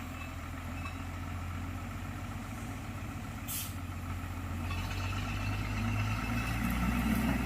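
Diesel engine of a motor grader running steadily. It grows louder and its note rises about five seconds in. There is one short hiss about three and a half seconds in.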